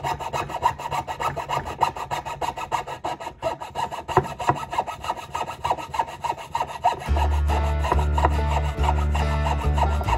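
Jeweler's saw blade cutting through zebrawood in quick, even back-and-forth strokes, a dry rasping sound. Background music with a steady low bass comes in about seven seconds in, under the sawing.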